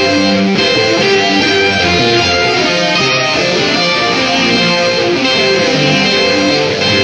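Guitar-led music playing steadily, with plucked and strummed guitar notes.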